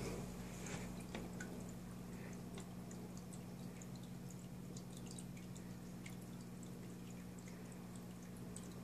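Aquarium sounds: a steady low hum with faint, scattered drips and small ticks of water.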